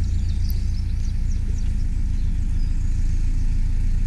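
Narrowboat's inboard diesel engine running steadily while cruising, a deep, even thrum, with a few faint bird chirps above it early on.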